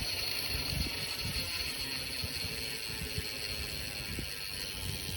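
BSD Revolution freecoaster BMX rear hub, a freecoaster combined with a cassette, spinning freely with a steady fast ticking and a high hiss.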